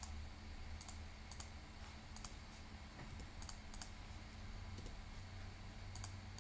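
About a dozen scattered clicks from a computer mouse and keyboard at irregular spacing, over a faint steady low hum.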